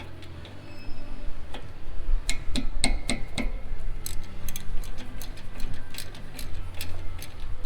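Ratchet wrench clicking in quick, even strokes from about four seconds in, as a fastener on the brake caliper is backed out, after a few sharp metal clinks of tools on the caliper.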